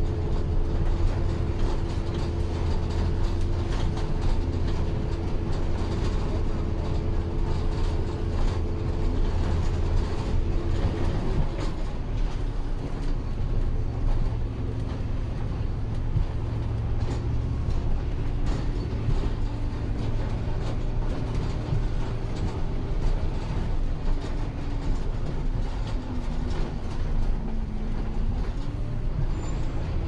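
A bus heard from inside its cabin while driving: a steady low rumble with a humming whine that breaks off about a third of the way in. Lower tones then sink slowly and rise again near the end, as the engine speed changes.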